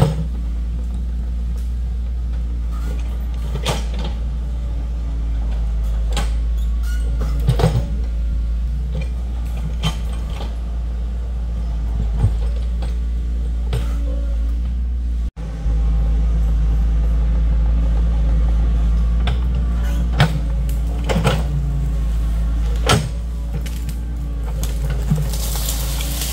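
Excavator's diesel engine running steadily while it digs, with scattered knocks and clatters throughout.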